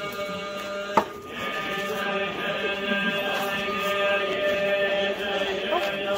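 Buddhist sutra chanting by several voices in a temple hall, a steady drone of held tones. It is broken about a second in by a single sharp strike, after which the chanting is louder.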